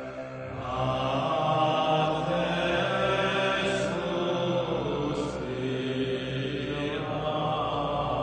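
Background music with slow, sustained droning tones.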